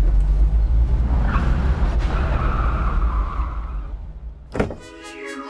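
Mahindra XUV500 engine running with a low rumble, a steady higher tone joining about a second in, the sound fading away over about four seconds. A single thump near the end, then electronic music starts.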